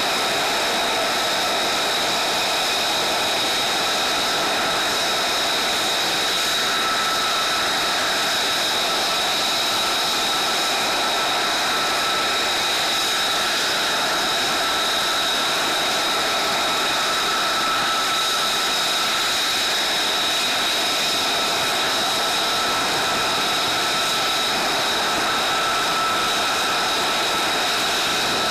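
Aircraft turbine engine running steadily: a high, unchanging whine with several fixed tones over an even rush of noise.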